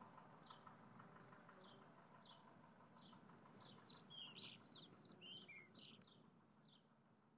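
Faint bird chirps about once a second, with a brief flurry of busier twittering in the middle, fading out near the end.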